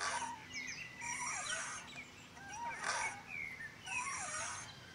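Playground swing chains squeaking in rhythm with the swing: a rising-and-falling squeal with a scraping rasp on each pass, about every second and a half.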